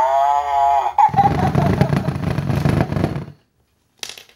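Fisher-Price Bounce & Giggle Cow toy playing its built-in sounds: a drawn-out pitched call lasting about a second, then about two seconds of giggling. A short click follows near the end.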